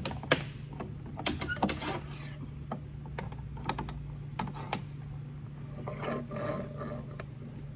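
Uncoated 316 stainless steel lifeline wire being fed through a boat stanchion, with irregular metallic clicks and scrapes as it is handled against the fittings. A steady low hum runs underneath.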